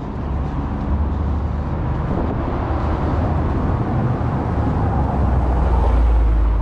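Car driving slowly down a narrow cobbled street toward the listener, engine and tyres on the stone setts making a low rumble that grows louder as it nears.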